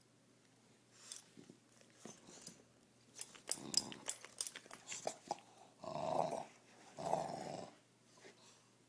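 English bulldog mouthing and tugging at a rubber toy bone, with a run of sharp clicks and scrapes from its teeth on the toy. Near the end come two short play growls, each under a second.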